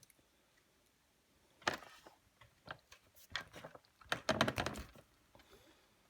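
A series of sharp metal clicks and clunks from a pair of snips being worked on a steel doorstop spring, trying to cut through it. There are a few single clicks, then a quick cluster about four seconds in.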